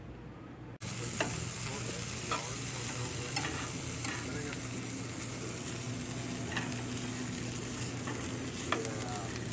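Diced vegetables sizzling in a nonstick frying pan on a gas stove, starting about a second in, while a silicone spatula stirs them and scrapes the pan now and then.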